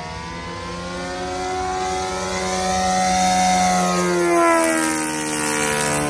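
O.S. Gemini 160 two-cylinder four-stroke model-aircraft engine and propeller running at high throttle in flight. The plane makes a low pass: the sound grows louder and its pitch rises, then the pitch drops sharply as it goes by about four seconds in.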